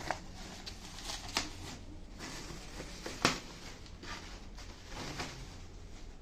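Thin plastic-foam wrapping rustling and crinkling as a soundbar is slid out of its protective sleeve. There are a few sharper crackles, the loudest about three seconds in.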